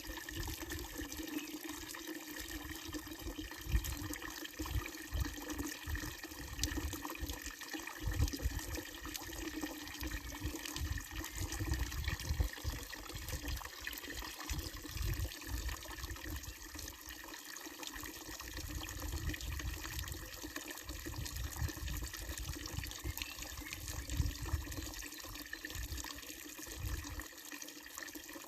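Water pouring steadily from a wooden trough spout of a traditional fountain into its basin, with an uneven low rumble underneath.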